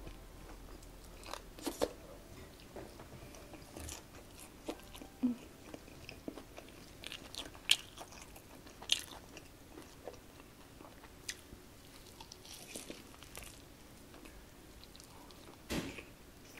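Close-miked eating: crunchy bites into a Korean fried chicken drumstick dipped in stretchy melted cheese, with chewing. The crunches come irregularly, a few sharper than the rest.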